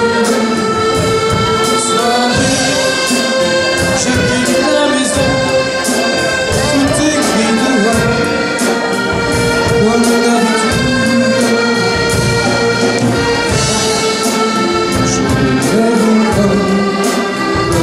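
Accordion ensemble playing a dance tune live: many accordions sounding sustained chords and melody together over a steady beat.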